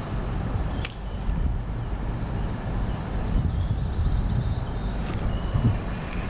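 Steady low rumble of wind on the microphone, with one sharp click about a second in.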